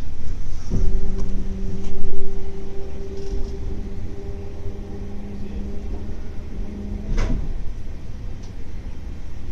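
Electric train running slowly with a steady low rumble. A steady low hum starts with a click less than a second in and stops with another click about seven seconds in.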